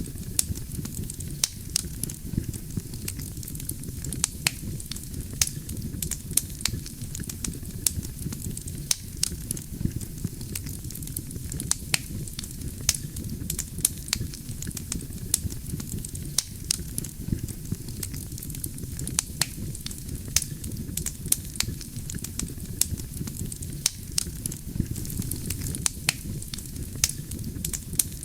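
Wood fire burning steadily: a low rumble of flames with frequent sharp crackles and pops of burning logs, several a second.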